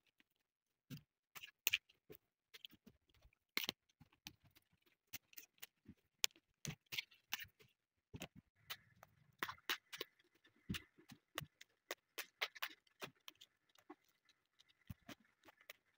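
Small crisp snaps and clicks of snow pea pods being snapped at the tips and stripped of their strings by hand, at an irregular pace of one to three a second.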